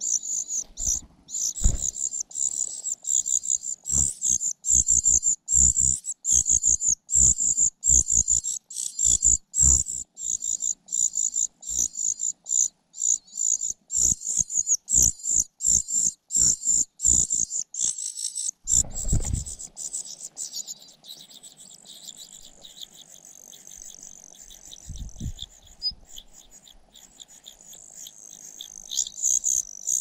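Nestlings, a cuckoo chick among them, begging with rapid, high-pitched chittering calls, mixed with sharp knocks, for about the first twenty seconds. After that only a fainter, thin high trill remains.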